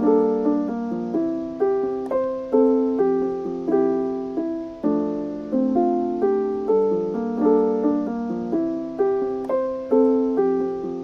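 Background music: a gentle solo piano piece, with notes and chords struck about twice a second, each fading before the next.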